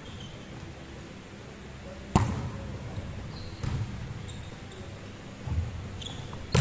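A volleyball struck during a rally: a sharp slap about two seconds in, the loudest sound, another hit a second and a half later and one more near the end, each echoing in the large gym hall. Short high squeaks of sneakers on the wooden court floor come in between.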